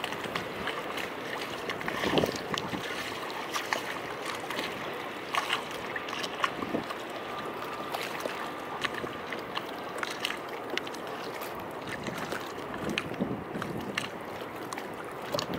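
Small harbour waves lapping and sloshing against the quay steps, with many small splashes and trickles.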